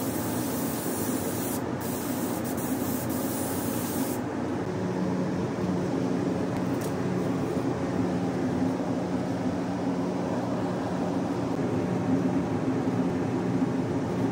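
Air spray gun hissing as paint is sprayed onto a car's bumper, over a steady low machine hum. About four seconds in the hiss stops abruptly, leaving the duller steady hum.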